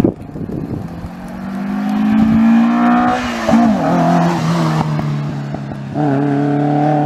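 Classic rally car, a Mk1 Ford Escort, driving up the road with the engine pulling hard. The engine note rises steadily, dips sharply about three and a half seconds in as the car passes close by, then settles into a steady lower note that carries on loud to the end.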